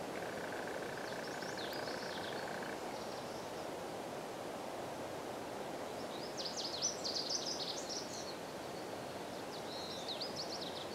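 Outdoor background with a steady low hiss and birds chirping in short quick runs of high notes, about two seconds in, again around six to eight seconds in, and near the end. A thin steady tone stops about three seconds in.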